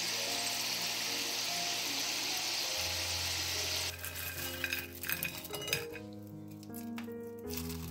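Food frying in hot oil: a steady sizzle that cuts off suddenly about four seconds in. After that, soft background music with a few light clinks.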